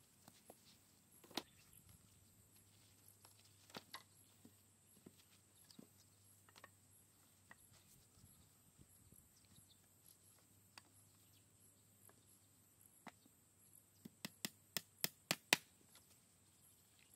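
A blade chopping into bamboo poles: a few scattered knocks, then near the end a quick run of about eight sharp chopping strikes, several a second. Under it runs a faint, steady, high insect drone.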